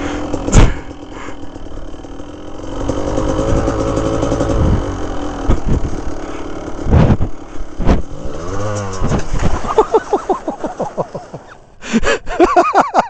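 Kawasaki KDX 200 two-stroke trail bike engine running and revving on a slippery snow descent, with sharp knocks as the bike jolts, the loudest about half a second in. Near the end the revs sweep up and down again and again as the bike goes down in a fall.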